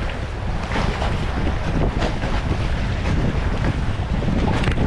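Wind buffeting the microphone, with seawater washing against a breakwater.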